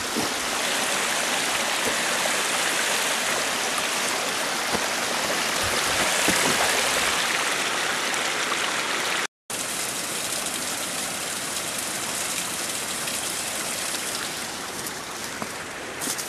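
A small waterfall splashing, a steady rushing noise of falling water that cuts out for a moment about nine seconds in.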